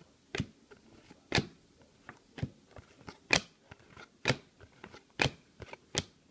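Cardboard basketball trading cards being flipped through by hand, each card slid off the front of the stack and onto the back with a crisp swish-snap. Seven of them, at a steady pace of about one a second.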